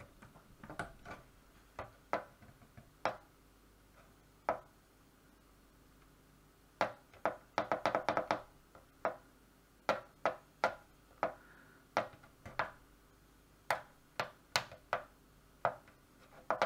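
Scattered light clicks and knocks of hands handling things on a workbench, sparse at first and coming thick and fast around the middle.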